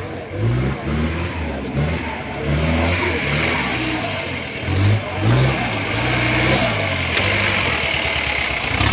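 Engine of an open-top jeep-style 4x4 revving up and down over and over as it crawls up a rough dirt trail.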